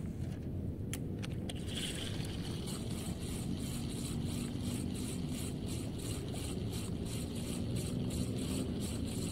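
Spinning reel (Relix Cetus Attach 1000) being cranked to retrieve the lure, giving an even, fast ticking of about five ticks a second after a few sharp clicks about a second in. A steady low rumble runs underneath.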